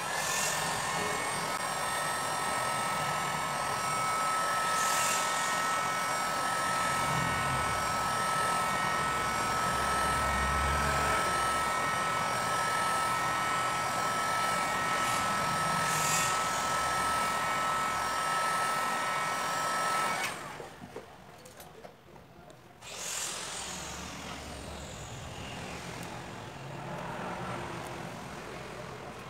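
Hot-air heat gun running steadily while it heats a smartphone's display: a whining fan motor over a rush of air. It cuts off abruptly about twenty seconds in, and a quieter, fading rush of noise follows a couple of seconds later.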